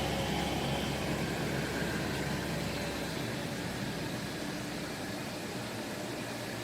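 A vehicle engine running with a low hum that fades away about halfway through, over a steady rushing hiss.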